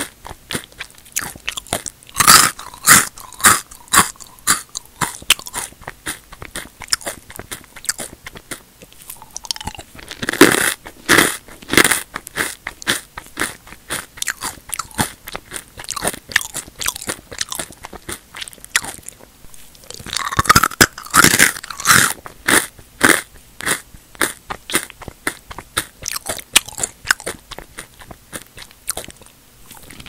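Square potato and sweet potato chips being bitten and chewed close to the mouth: sharp crunches with loud clusters about two, ten and twenty seconds in, and lighter chewing crunches between.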